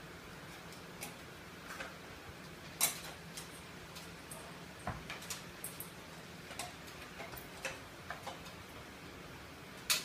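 Scattered light clicks and taps, irregular and of varying strength, as small parts and tools are handled at a ceiling fan's motor and switch housing during a capacitor repair; the sharpest click comes about three seconds in and another near the end. A faint steady low hum runs underneath.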